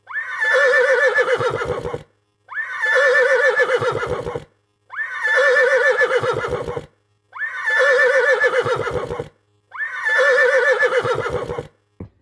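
A horse whinnying five times in a row, each call about two seconds long and nearly identical. Each whinny starts high, wavers as it falls, and ends in a low fluttering nicker.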